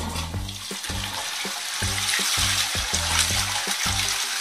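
Rushing, hissing water sound effect laid over the toy toilet, swelling in the middle and easing off near the end. Underneath runs background music with a repeating bass line.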